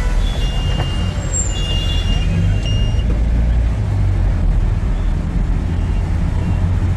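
Bus running with a steady low rumble from its engine and drivetrain while under way. A thin high squeal sounds for about a second and a half, about two seconds in.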